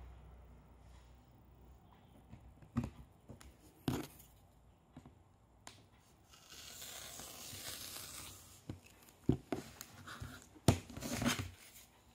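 Rotary cutter blade rolling through a sheet of flat slingshot rubber along a cutting ruler in one slow swishing stroke of about two and a half seconds. A few sharp knocks and clicks of the ruler and sheet being handled come before it and several more after.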